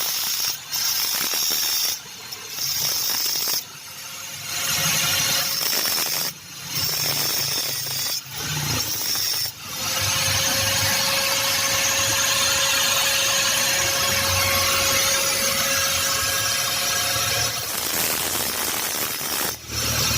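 A power tool cutting into a metal pipe, shaping teeth for a homemade fork-cap spanner: several short runs of a second or two each, then one longer steady run of about seven seconds, then more short runs near the end.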